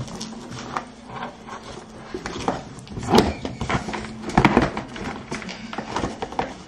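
Packaging being handled and torn open by hand: irregular rustling, crinkling and small knocks, louder about three and four and a half seconds in.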